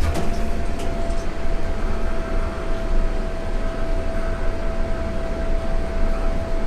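Toshiba elevator running: a steady low rumble with a single unbroken tone held throughout, and a couple of light clicks near the start.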